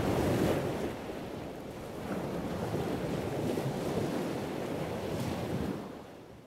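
Sea waves washing, with wind rushing, fading away near the end.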